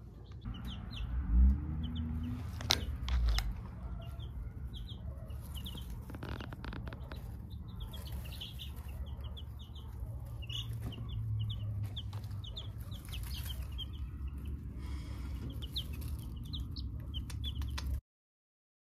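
A brood of days-old Star sex-link chicks peeping continuously, many short high peeps overlapping. Two low thumps stand out about a second and a half and three seconds in, and the sound cuts off just before the end.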